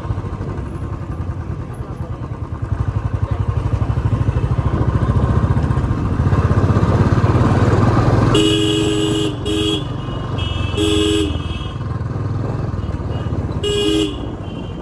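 Royal Enfield Classic 350's single-cylinder engine thumping steadily on the move. A two-tone vehicle horn honks four times from about eight seconds in, the last near the end.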